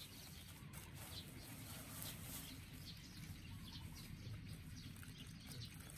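Quiet outdoor ambience: a low steady rumble with faint, scattered short chirps of distant birds.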